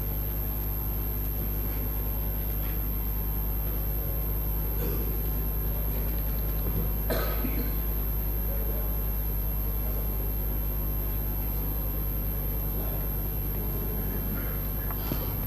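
Steady low electrical hum from a microphone and sound system in a large hall, with a few faint brief knocks and rustles, one about seven seconds in and another near the end.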